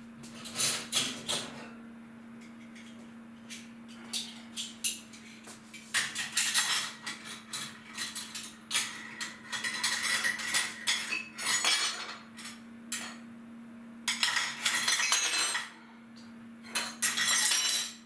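Crockery and cutlery clinking and clattering as dishes are handled at a kitchen sink, in irregular clusters of sharp knocks with some longer spells of clatter, over a faint steady hum.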